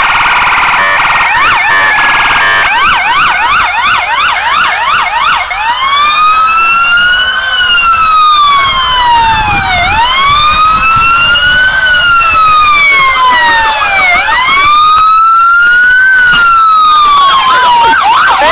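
Several emergency-vehicle sirens sounding together. A fast electronic yelp comes first. About six seconds in, a slow wail rising and falling about every four seconds takes over, with a yelping siren still going beneath it, and the fast yelp comes back near the end.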